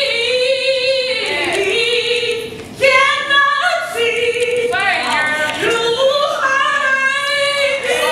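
A woman singing solo, holding long high notes that slide from one pitch to the next, with a brief breath-like break about three seconds in.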